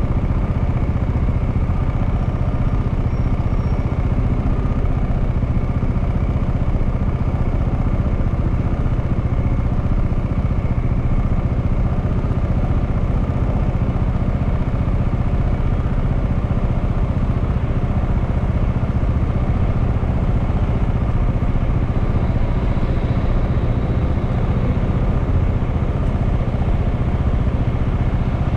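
Honda Clubman single-cylinder motorcycle engine running steadily, its pitch holding even with no revving.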